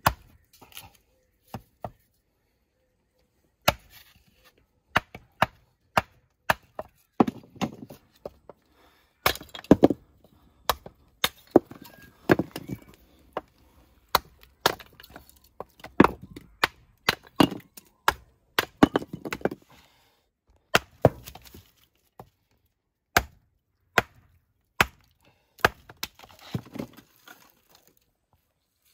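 Hatchet chopping kindling on a wooden stump: dozens of sharp, irregular blows of blade on wood, some running into a brief crackle as the stick splits.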